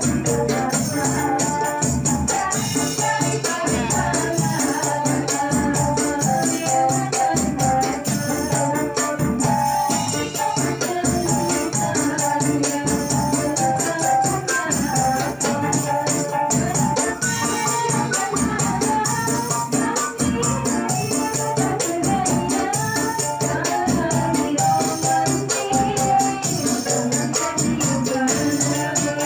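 Qasidah modern group performing a sholawat song: women singing into microphones over an electronic keyboard, with hand percussion keeping a steady beat.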